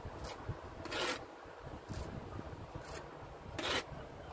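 A steel trowel scraping wet lime mortar against brick in about five short, rasping strokes roughly a second apart; the strokes about a second in and near the end are the loudest.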